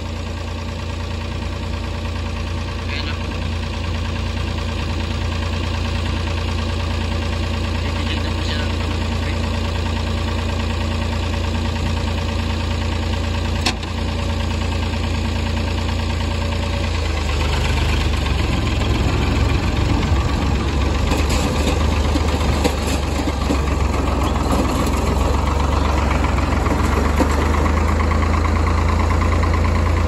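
An engine running steadily at idle with a low hum. About halfway through it turns rougher and slightly louder, and a rushing noise joins it.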